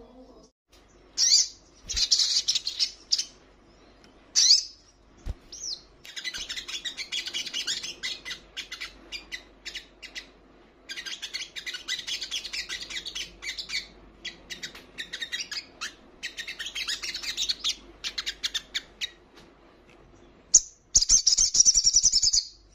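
Olive-backed sunbird singing: long runs of rapid, high twittering in repeated bursts with short pauses between them, loudest in bursts a second or so in and near the end.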